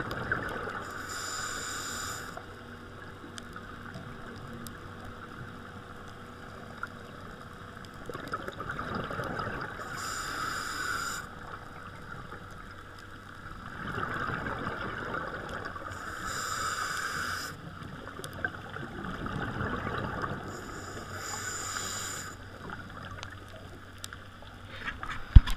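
Scuba diver breathing through a regulator underwater, heard through the camera housing: four hissing inhalations, each followed by the low gurgle and rumble of exhaled bubbles. A sharp knock near the end.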